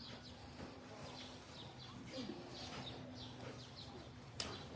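Faint chirping of small birds over a low steady hum, with a single sharp click near the end.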